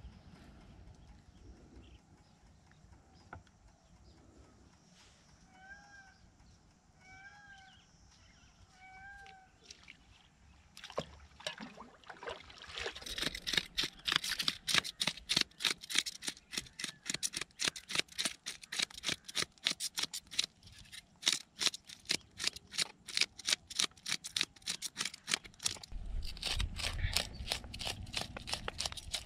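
A bird calls three times, short rising-and-falling notes, over faint outdoor ambience. About eleven seconds in, a rapid run of sharp clicks and knocks starts, several a second, and carries on to the end.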